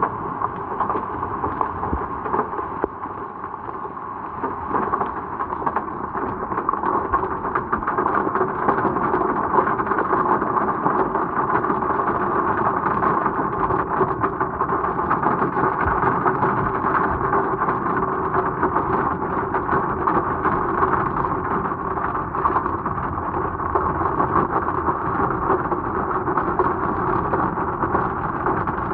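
Hailstones hitting a car's windscreen and body: a dense, continuous clatter of countless small hits.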